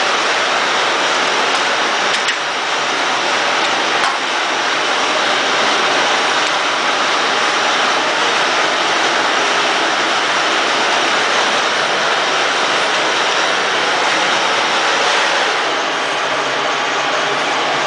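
Steady, loud machine noise: an even hiss with no clear pitch, easing slightly near the end.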